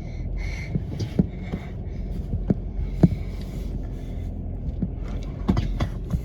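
Toyota 4Runner crawling a rough off-road trail, heard from inside the cabin: a steady low engine-and-drivetrain rumble with frequent sharp knocks and rattles, the loudest about three seconds in.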